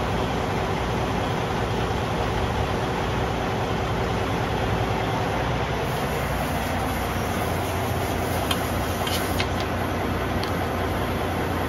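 Steady hiss of compressed air leaking at the chuck of a glad-hands air hose as it is pressed onto a truck tire's valve stem, over a steady low rumble.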